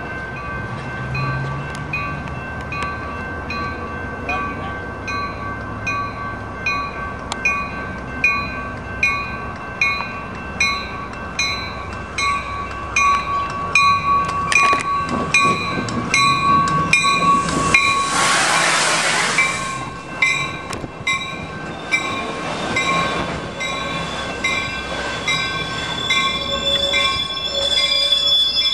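Railroad grade-crossing warning bells clang steadily at about one and a half strikes a second while a Coaster commuter train rumbles into the station. About two thirds of the way through there is a loud hiss lasting about two seconds.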